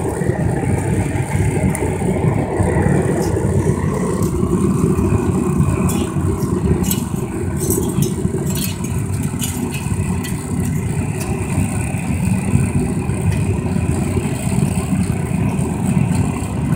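Homemade metal-melting furnace running steadily with forced air blown into it during a copper melt, with a few sharp crackles about halfway through.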